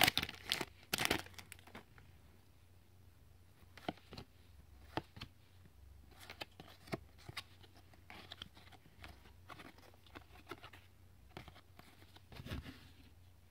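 A trading card pack's wrapper being torn open with a crinkly rustle for about the first second, then the faint scattered clicks and slides of cards being flipped through one by one, with a soft knock near the end.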